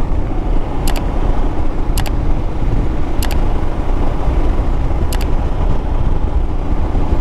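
Royal Enfield Himalayan's single-cylinder engine running steadily at cruising speed, mixed with rushing wind noise on the rider's camera mic. Four short, high clicks sound over it about a second apart.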